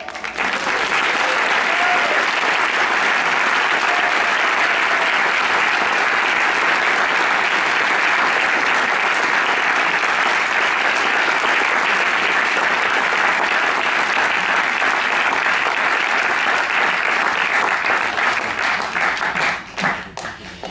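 Audience applauding: dense, steady clapping that thins to scattered claps near the end.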